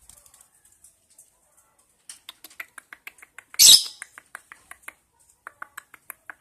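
A one-month-old lovebird chick giving rapid short begging chirps while being hand-fed, several a second, with one loud harsh squawk a little past halfway.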